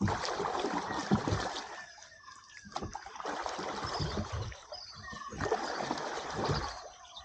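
Oars or paddles pulling through water as a small rowed boat moves along: three splashing strokes a couple of seconds apart.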